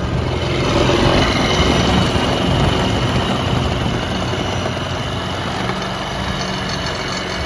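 Yamaha RS100 scooter engine and belt drive running at idle, a little louder for the first couple of seconds, then steady.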